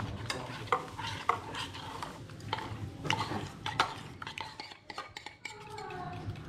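A utensil stirring in a mixing bowl, clinking irregularly against its sides, as melted butter and chocolate are worked into the beaten eggs and sugar for the cake batter.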